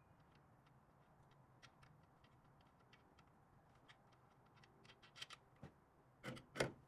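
Faint, scattered clicks and light taps of hand work on a truck's front suspension, with two louder knocks near the end.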